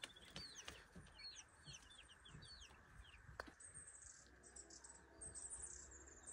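Faint high peeping of young chicks, many quick short chirps over the first three seconds or so. About halfway through there is a click, followed by a faint steady high-pitched hiss.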